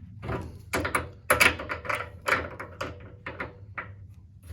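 Adjustable spanner and grips clicking and knocking on the nut of a radiator valve as it is cracked loose: an irregular run of sharp metallic taps and clunks, the loudest about a second and a half in.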